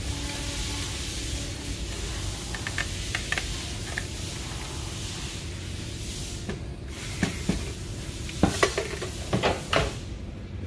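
A steady hiss, then a run of sharp plastic clicks and knocks about seven to ten seconds in as a truck's fuel pump module is handled and worked apart by hand.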